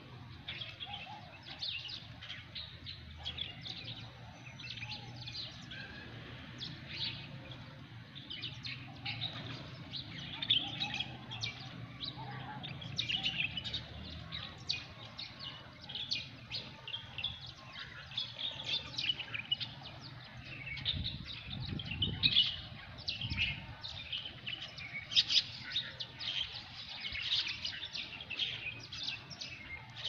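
Several small birds chirping in the trees, a steady stream of quick, short calls overlapping one another, over a faint low hum.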